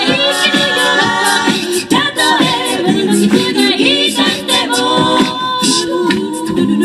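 A mixed male and female a cappella group singing in close harmony through microphones, with a beatboxer's vocal percussion keeping a steady beat under the voices.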